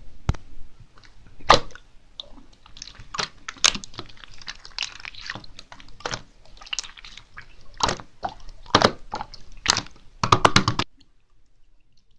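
Slime being squished and worked by hand, giving irregular wet clicks, pops and crackles, with a quick run of pops just before it stops near the end.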